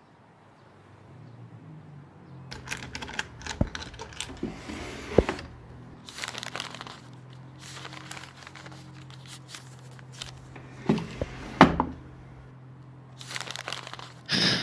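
Paper being crumpled and torn, with several sharp knocks and clicks, over a low steady hum that starts about a second in; the handling builds from about two and a half seconds in, and the loudest knocks come near the middle and about three-quarters through.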